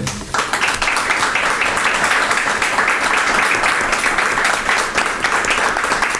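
Audience applauding: many hands clapping at once, starting just after the start and holding steady.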